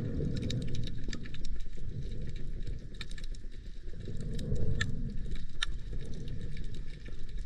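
Underwater sound picked up through a camera housing while diving along a shallow reef: a muffled low rumble of moving water that swells and fades, with scattered sharp clicks and crackles throughout.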